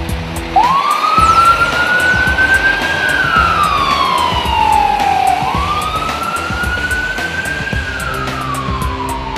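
Fire engine siren wailing over background music. Its pitch sweeps up quickly, then slides slowly down, in two full cycles of about five seconds each.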